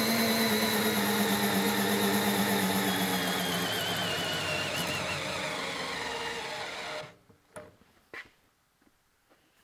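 Makita FD09 12V brushed drill-driver running flat out on a torque dyno, its motor and gearbox whine slowly sagging in pitch and level as the load rises and drags it down to a stall. It stops about seven seconds in, and a couple of faint clicks follow.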